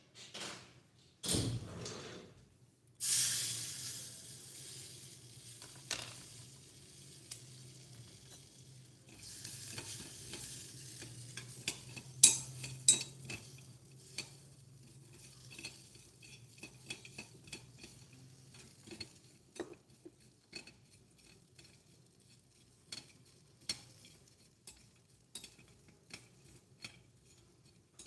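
Sizzling in a tiny stainless-steel pot of hot popcorn as a seasoning liquid is spooned in: two bursts in the first few seconds that die down over several seconds. Then a small metal ladle stirs the popcorn, with many light clinks against the pot.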